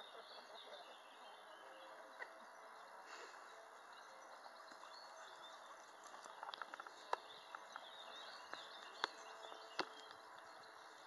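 Quiet outdoor ambience with faint bird chirping in the background. A few sharp clicks or taps come in the second half.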